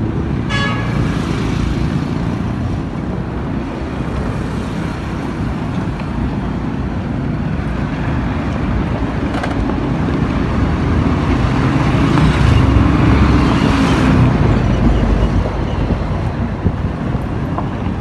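Road traffic on a dirt road: motorcycle and truck engines running past, with a short horn toot about half a second in. The engine sound grows louder in the middle as a motorcycle passes close by.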